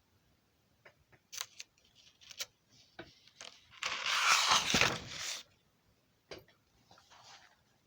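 A few sharp clicks and taps, then a rustling, scraping noise lasting about a second and a half near the middle, followed by a few faint taps.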